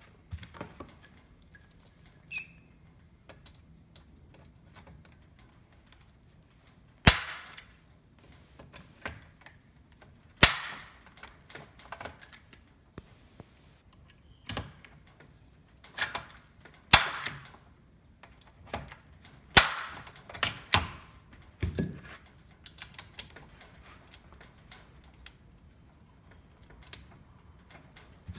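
Hand pop-rivet tool setting rivets into a sunroof assembly's metal frame: small clicks as the handles are squeezed, then a sharp snap each time a rivet's mandrel breaks off, several times over.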